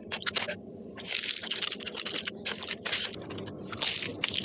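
Close-miked eating: wet chewing and mouth smacking with many small sharp clicks and crackles.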